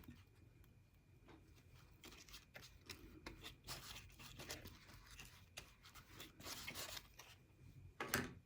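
Faint rustling and crinkling of paper craft pieces being handled and pressed down while glued in place, in scattered short bursts, with a louder rustle near the end.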